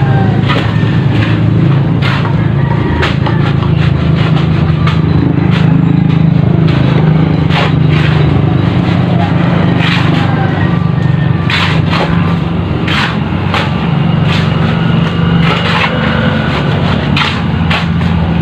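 Steel shovels scraping and turning a concrete mix of cement, sand and gravel on bare ground, a steady run of scrapes and sharp clinks, over a continuous low hum.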